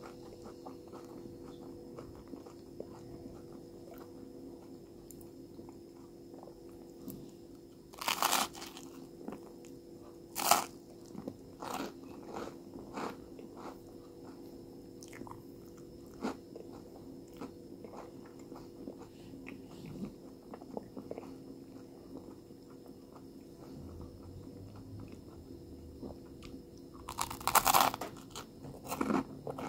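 A person biting into and chewing crunchy toasted bread topped with tomato. There are loud crunchy bites about eight seconds in, again two seconds later and near the end, with softer chewing clicks in between.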